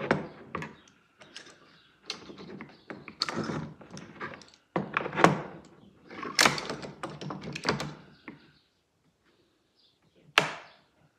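Quick-release metal clamps clattering and knocking against aluminium rails on a workbench as they are gathered up: a run of irregular knocks and clacks, then a pause and one sharp knock near the end.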